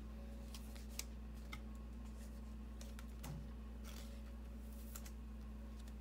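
Scattered light clicks and short rustles of cardboard trading cards and plastic card sleeves being handled, over a faint steady hum.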